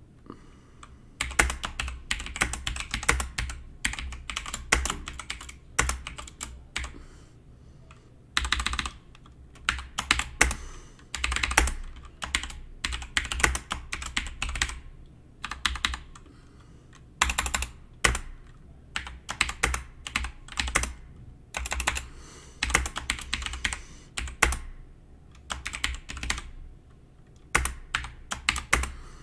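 Fast typing on a computer keyboard, in runs of clicking keystrokes a few seconds long broken by short pauses.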